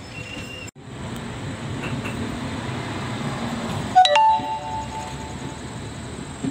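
Passenger train running, heard from on board as a steady rumble of wheels and coach. The sound drops out for an instant just under a second in. About four seconds in comes a sudden loud ringing, several steady tones together, that fades after a second or so.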